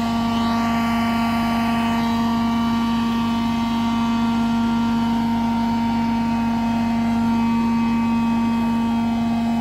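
Steady machine drone from a parked Boeing 737 and the ground support equipment still hooked up to it before pushback: one constant low hum with evenly spaced higher tones above it, unchanging throughout.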